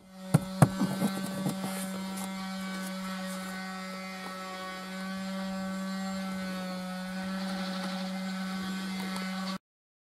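A steady electrical hum, with a few sharp plastic clicks and knocks in the first second and a half as the dashboard air-vent trim of an Audi A6 C7 is pressed by hand. The hum cuts off abruptly near the end.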